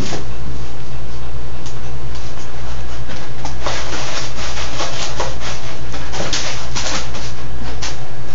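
A puppy digging and pawing in granular cat litter inside a plastic litter box, the granules scratching and rustling in quick scrapes, busiest from about three and a half to seven seconds in. A steady low hum runs underneath.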